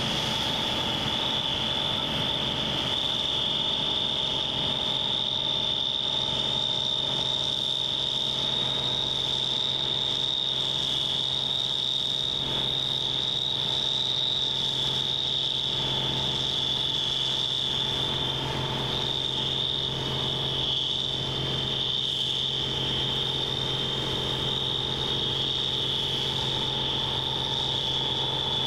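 Claas Dominator 98 SL combine harvester running steadily: a constant high-pitched whine over a steady low machine hum.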